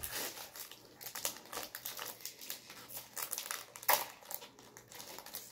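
Foil booster-pack wrapper crinkling as it is handled, in irregular rustles and crackles, with a louder crackle about four seconds in.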